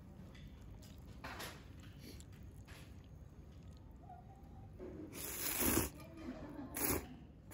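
Soba noodles being slurped from a bowl of hot broth: a faint slurp about a second and a half in, then a long loud slurp about five seconds in and a short one near the end.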